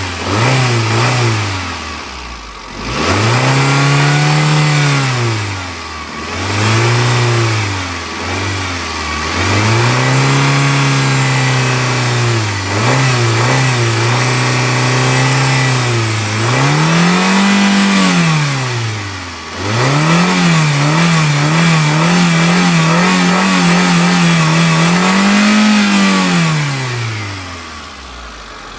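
Car engine being revved again and again, its pitch climbing and falling with each press of the throttle. Some revs are held for a few seconds, with a quick run of short blips after about twenty seconds. It drops back to idle near the end.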